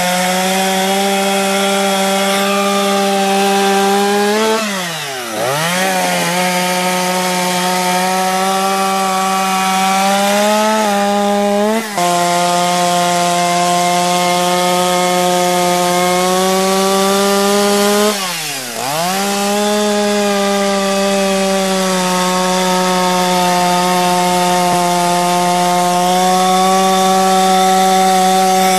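Chainsaw running at high revs while carving wood. The engine note dips sharply and climbs back twice, about five seconds in and again near eighteen seconds, with a brief catch at about twelve seconds.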